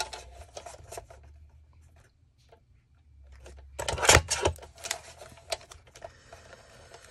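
Paper being trimmed narrower along a straight edge: light handling clicks and rustling, a lull, then a short run of scraping, rubbing strokes about four seconds in.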